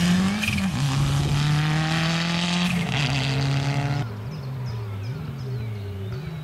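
Toyota Celica GT-Four rally car's turbocharged four-cylinder engine at full throttle, held at high revs with a short dip and rise near the start. About four seconds in it cuts to a quieter, more distant run where the engine note rises and falls as the car lifts off and accelerates again.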